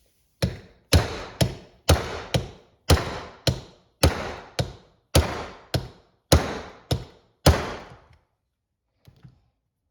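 Hammer blows on a bushing driver, driving a new bushing into an automatic transmission's planetary assembly: about fourteen sharp strikes, roughly two a second, stopping about eight seconds in.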